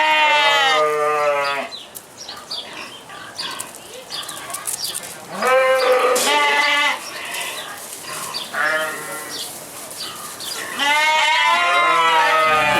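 Sheep bleating: four long, quavering bleats with short pauses between them.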